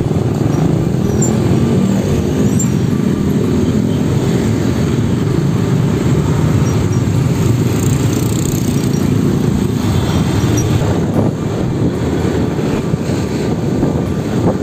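Motorcycle engine running with the steady low rumble of surrounding road traffic in slow, congested traffic; in the last few seconds the sound turns rougher and more uneven as the bike gets moving.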